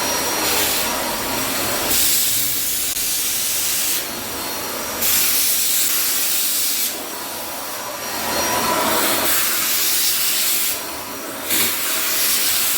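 Wet and dry vacuum cleaner fitted with a corner brush attachment, switched on and running: a loud rushing suction noise that starts suddenly and rises and dips in level every couple of seconds.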